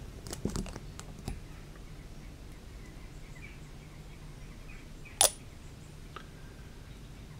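Light clicks and taps of plastic model-kit parts and a glue brush applicator being handled: a few soft clicks in the first second, then one sharper click about five seconds in. A faint steady hum runs beneath.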